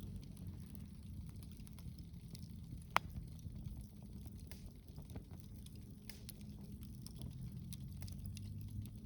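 Wood fire crackling, with scattered small crackles and one sharp, loud pop about three seconds in, over a low steady rumble.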